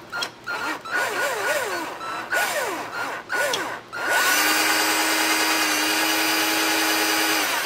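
Cordless drill turning a reamer through a crankshaft bearing hole in a small steam engine's stand, reaming out a bore that closed up a little when a part was pressed in. First several short, stop-start pulls of the trigger with the motor speed wavering, then about three and a half seconds of steady full-speed running that stops near the end.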